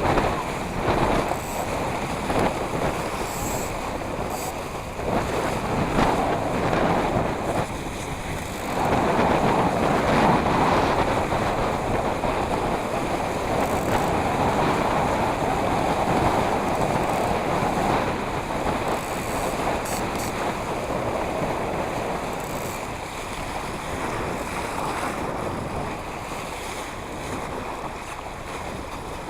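Wind buffeting the microphone over waves and water splashing, louder for several seconds around the middle.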